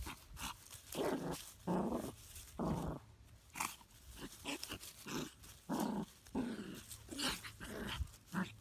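Small dog growling in short bursts, about one a second, while play-wrestling with a cat, with scuffling noises in the grass between the growls.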